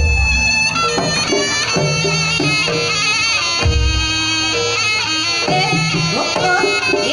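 East Javanese jaranan gamelan music: a reedy slompret (shawm) melody with bending pitches over kendang drumming and tuned percussion notes. Two deep low strokes sound, one at the start and one about halfway through.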